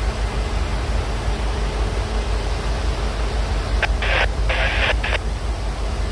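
Union Pacific double-stack intermodal freight train rolling past: a steady low rumble and rush of wheels on rail. About four seconds in come two short bursts of hiss, each starting and stopping sharply.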